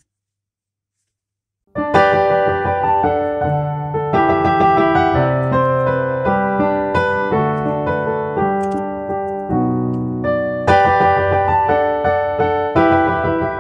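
Silence for the first couple of seconds, then piano background music starts and carries on as a run of struck notes and chords.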